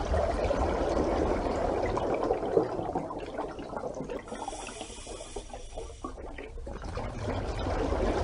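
Rushing, bubbling water, loudest at the start, dipping in the middle and building again near the end.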